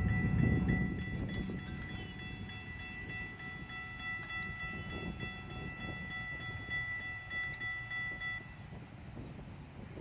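Railroad grade-crossing warning bells ringing steadily while the gates rise, cutting off about eight seconds in. Under them a low rumble from the passing FEC train fades away.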